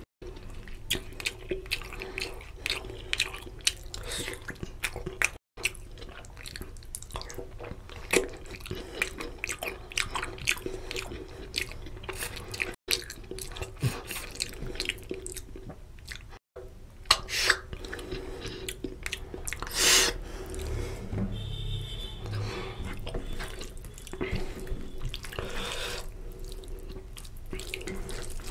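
Close-up wet eating sounds: fingers squishing rice into oily mutton curry on a steel plate, and chewing and lip-smacking of the mouthfuls. It is a dense, continuous run of small clicks and squelches, with one louder smack about two-thirds of the way through.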